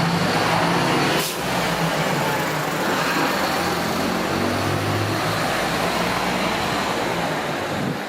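A motor vehicle's engine running close by in street traffic, over a steady hiss. There is a single sharp knock about a second in.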